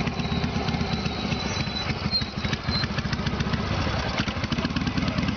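Harley-Davidson V-twin motorcycle engine running at low revs as the bike rolls up close, with a fast, uneven, low-pitched exhaust beat.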